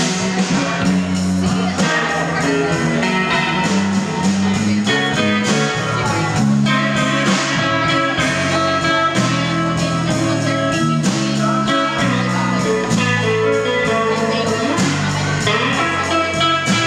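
Live blues band playing an instrumental passage without vocals: electric guitar over electric bass and a drum kit.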